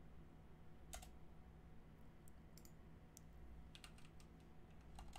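Faint computer keyboard keystrokes: a single key press about a second in, a few scattered taps, then a quick run of typing near the end.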